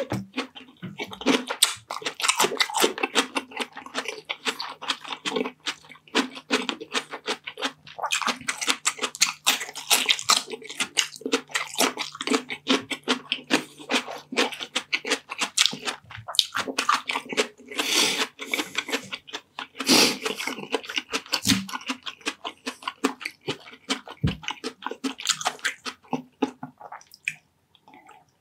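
Close-miked mouth sounds of a person eating Bicol Express, pork in coconut milk, with rice: a dense, irregular run of chewing and lip-smacking.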